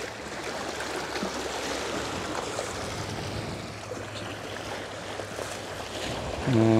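Small waves washing and trickling over a rocky shoreline as an even wash of water noise. Near the end a steady low hum with overtones starts abruptly and is the loudest sound.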